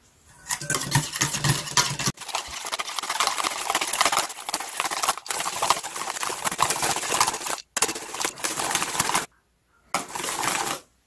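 Wire whisk beating in a stainless steel bowl: rapid metal-on-metal clattering and scraping as melted soap base is whipped toward a whipped-cream consistency. The whisking pauses for about half a second near the end, then starts again.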